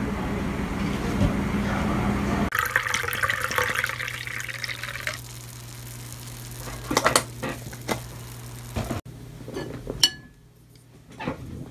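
A steady noise with a low hum, then from about two and a half seconds in a drink being poured into a glass cup for a few seconds, followed by a few light clicks and clinks.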